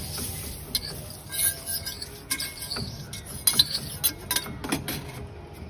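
Metal spatula scraping and clinking irregularly across a hot, oiled iron dosa tawa as the oil is spread, over a faint sizzle.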